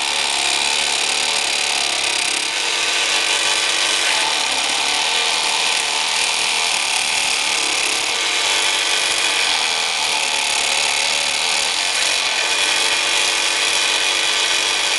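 Small electric craft jigsaw (a kids' PlayMat scroll-type saw) running steadily with its blade sawing through a thin wooden tongue depressor.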